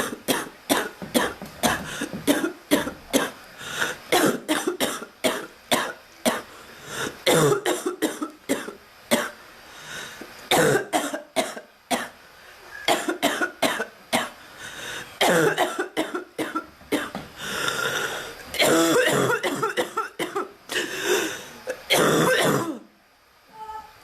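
A woman's persistent coughing fit: many harsh coughs in quick runs with short breaths between, some with throat clearing, stopping shortly before the end.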